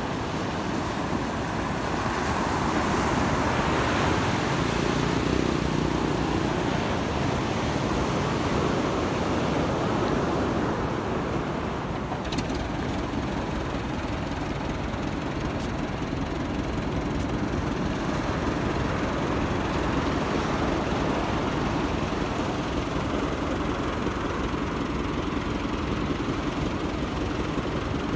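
Surf washing onto the beach with wind on the microphone. In the second half a steady low engine hum runs under the wind.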